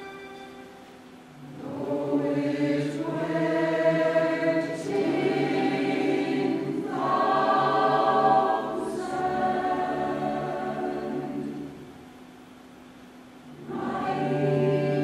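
Mixed choir of men and women singing a slow, sustained phrase, entering about a second in, with a brief lull near the end.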